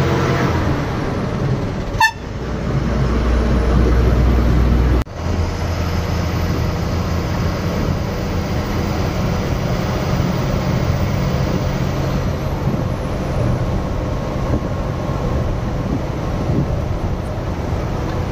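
Moving bus: steady engine and road noise, with a sharp click about two seconds in and a sudden break about five seconds in.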